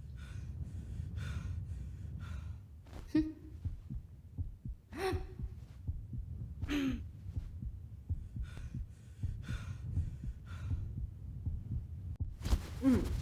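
Heavy breathing and gasps, a dozen or so short breaths with a few voiced catches, over a steady low throbbing rumble; the breaths come closer together near the end.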